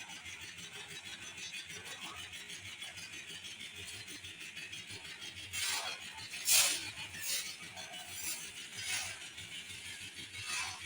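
A steady hiss, then from about halfway through a string of six or so short, sharp clinks or scrapes of hard objects, the loudest about six and a half seconds in.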